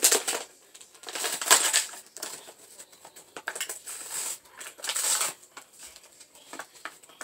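Toy packaging being opened and handled: crinkling plastic and rustling cardboard in several bursts, with small clicks and taps between.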